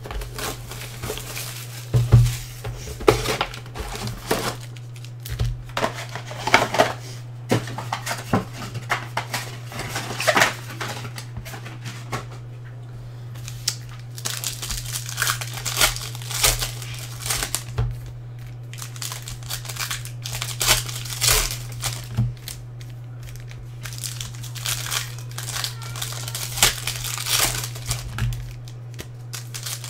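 Clear plastic wrapping and foil trading-card packs of a Panini Certified basketball box crinkling and tearing under the hands in quick irregular crackles, over a steady low hum.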